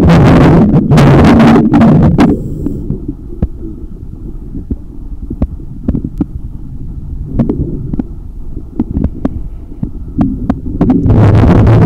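Underwater sound beside a boat hull: a loud, low, muffled rumbling of water for the first two seconds and again about a second before the end, with a quieter low hum between and scattered single sharp clicks.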